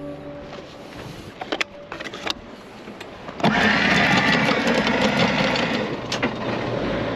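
Anchor chain rattling in a rapid, steady clatter as it runs over the bow windlass, starting abruptly about three and a half seconds in after a few light knocks.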